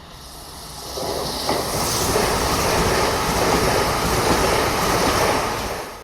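A train running along the platform, its noise swelling over the first second or two into a loud, steady rush of wheels on the rails.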